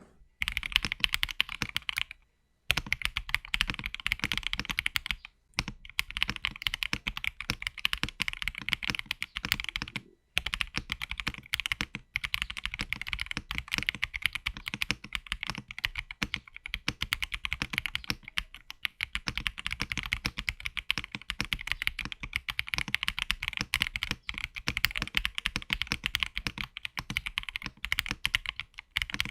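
Fast continuous typing on an Akko ACR Top 75 top-mount mechanical keyboard with linear Akko Crystal Wine Red switches and MDA keycaps, all stock and heavily dampened with silicone case and plate foam. The keystrokes run as a dense stream of clicks with a few short pauses.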